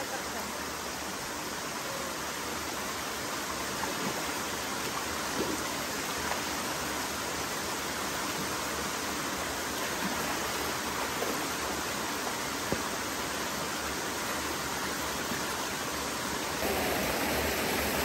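Steady rush of river water flowing over rocks, with a few light splashes from someone wading and bathing. Near the end the rush gets louder as a small cascade pours over rock close by.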